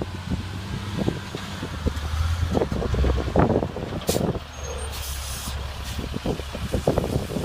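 A vehicle engine running with a low rumble, with a sharp click about four seconds in and a short hiss about a second later.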